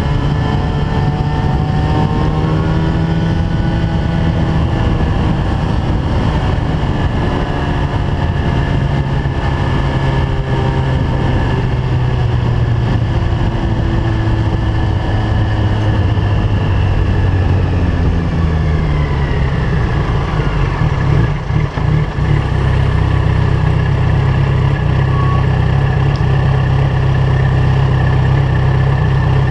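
Yamaha FZ1 inline-four through an aftermarket LeoVince GP-Style exhaust, heard from on the bike: the engine runs steadily at road speed, its pitch falls away as the bike slows about two-thirds of the way in, then it settles into a steady idle at a stop.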